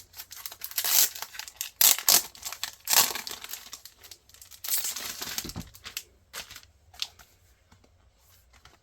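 Packaging being handled and unwrapped: crinkling in quick irregular bursts, loudest in the first half and dying away after about six seconds.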